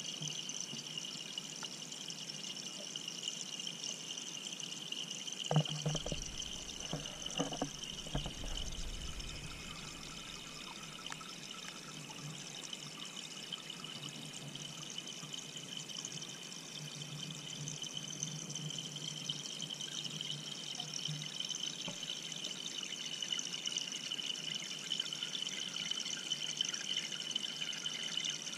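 Aquarium water running through the tank's filter, recorded underwater: a steady watery hiss with a couple of high steady tones. A few dull knocks come about six to nine seconds in.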